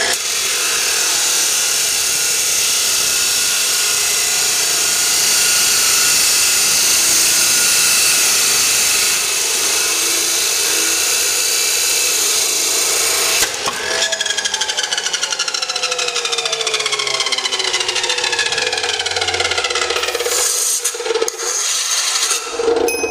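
Abrasive-wheel chop saw running and grinding through steel square tubing with a loud, steady, harsh noise. About 14 seconds in the cut ends and the motor is let off, and the wheel winds down with a falling whine until it nearly stops near the end.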